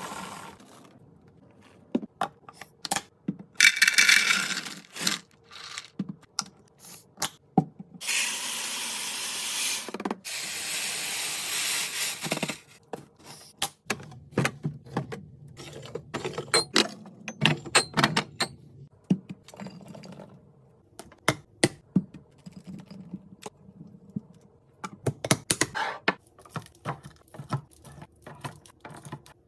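Restocking sounds: many light taps, clicks and knocks of items being handled and set down, with two longer stretches of steady noise, one of a second or so and one of about four seconds.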